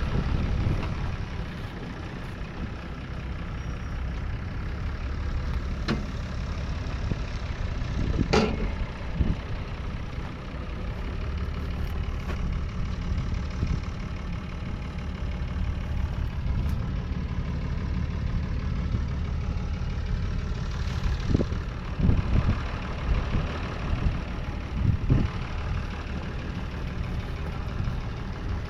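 Deutz-Fahr AgroXtra 6.07 tractor's 5.7-litre six-cylinder diesel engine running steadily, with a few short sharp knocks.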